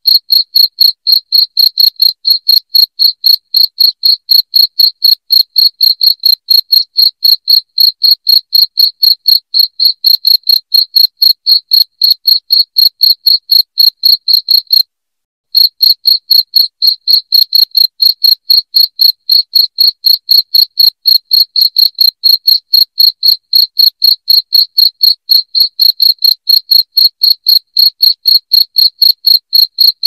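Crickets chirping: a loud, high-pitched, even train of chirps at about four a second, with a brief break about halfway through.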